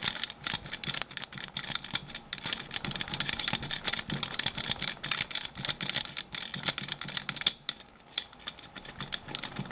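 Metal jiggle key being rocked and raked in the keyway of a Kwikset 660 deadbolt: rapid, irregular clicking and rattling as the key works against the pin tumblers, two of them security pins, to set them. The clicking pauses briefly about eight seconds in, then resumes.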